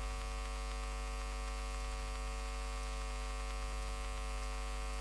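Steady electrical mains hum: a low hum near 50 Hz with a ladder of evenly spaced overtones, unchanging throughout.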